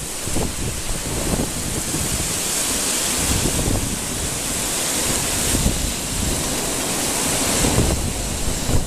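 Swollen river in typhoon flood, the water rushing steadily, with wind buffeting the microphone in uneven gusts.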